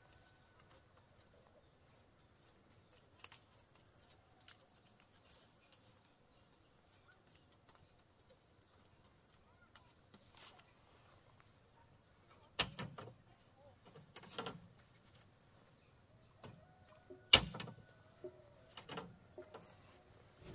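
Steady high insect trilling runs throughout. Over it come a few scattered clicks and a handful of sharp knocks and clatters, one about twelve and a half seconds in and the loudest about seventeen seconds in.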